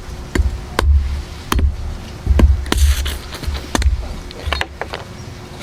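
Blade chopping at a roasted coconut's shell: a string of sharp, irregular knocks with dull low thuds beneath them.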